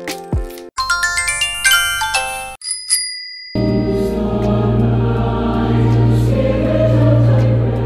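Music: a quick run of rising keyboard notes and a couple of high chime-like pings, then sustained choir-like voices over a steady low note from about halfway in.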